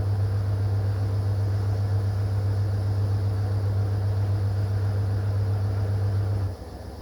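AEG washing machine running its rinse and spin programme: a loud steady low hum that cuts off suddenly about six and a half seconds in, leaving quieter running noise.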